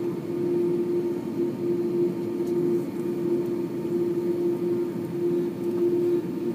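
Steady cabin noise inside an Airbus A330-200 taxiing, its jet engines running at low power, with one constant droning tone over a low rumble.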